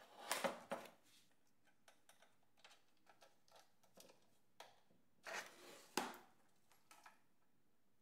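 Faint clicks and scrapes of a small precision screwdriver driving the mounting screws of a PC power supply into an open-air frame. The sounds come in short spells near the start and again around five to six seconds in.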